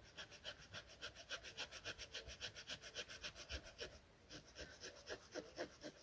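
Saw blade of a Victorinox Swiss Army knife sawing through a green tree branch in quick, even strokes, about four a second, with a brief pause about four seconds in. The blade cuts through easily.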